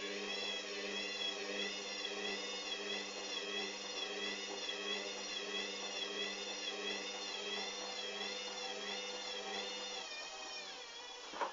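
Hoover Dynamic washing machine's motor whining through a spin on an unbalanced load, its pitch wavering up and down about once a second over a steady hum. The hum drops out about ten seconds in, and a short sweep near the end is followed by a drop in level as the machine winds down.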